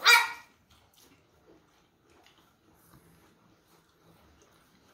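A short squeaky cry of a desert rain frog, played once as an edited-in sound effect. Faint chewing follows.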